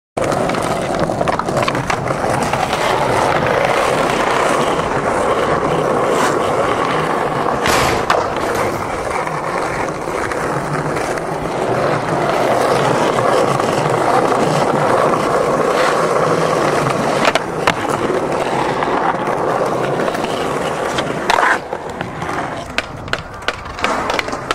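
Skateboard wheels rolling steadily over stone paving, with a few sharp board clacks about 8, 17 and 21 seconds in, and a scatter of clacks and knocks near the end.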